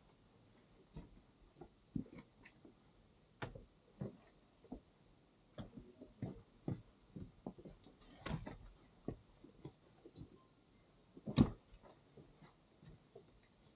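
Irregular footsteps and scuffs on a dirt and leaf-litter path, with small knocks, one louder thump about eleven seconds in.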